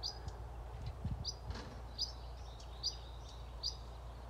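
A small bird repeating a short high chirp about once a second, over a steady low outdoor rumble, with soft rustling about a second in.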